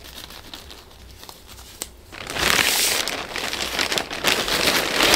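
Plastic packaging crinkling and crackling as it is handled, starting about two seconds in.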